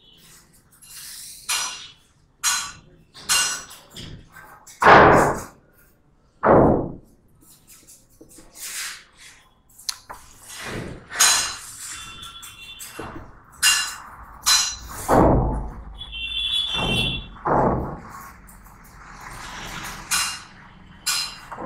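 Marker pen writing on a whiteboard: a string of short, irregular squeaks and taps as numbers and plus signs are written, with one longer high squeal past the middle.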